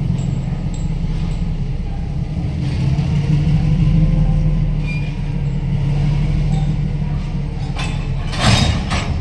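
Diesel locomotive engine running with a steady low rumble that grows louder in the middle, then a brief loud hiss of air near the end.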